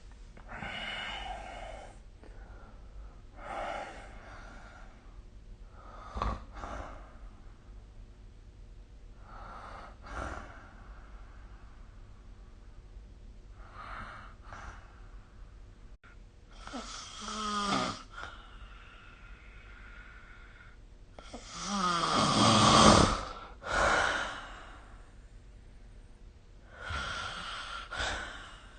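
A sleeping person snoring irregularly, a noisy breath every few seconds. Two stronger snores carry a clear pitch, the first a little past halfway and the loudest about three quarters through.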